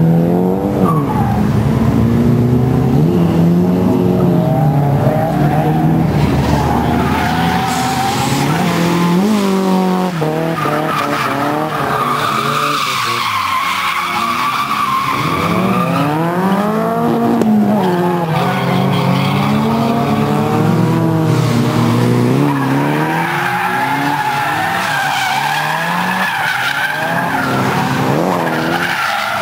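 Several drift cars sliding through a corner together, engines revving up and down hard as the drivers work the throttle, with tyres squealing and skidding.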